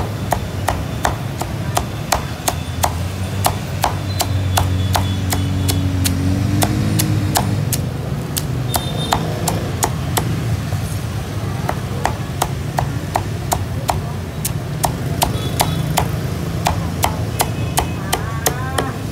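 Meat cleaver chopping roast pork on a thick round wooden chopping board: sharp chops in a quick, steady rhythm of about two to three a second.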